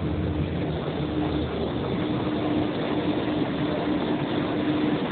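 Bombardier NGT6 low-floor tram pulling into an underground station platform and rolling close past, with a steady motor hum over the rumble and rush of the car.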